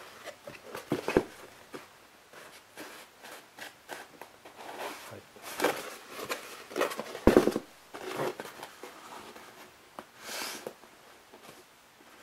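Hands rubbing, pressing and handling a soft foam mask shell to stick its two halves together along the glued seam: scattered rustling and scraping, with a couple of light knocks, the loudest about seven seconds in.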